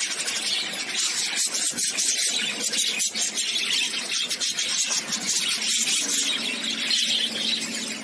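Budgerigars screeching and chattering harshly without a break.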